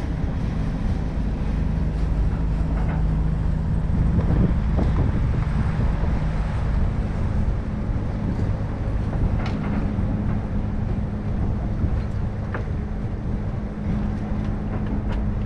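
A motor drones steadily under wind rumble on the microphone. Its low hum shifts up in pitch about five seconds in.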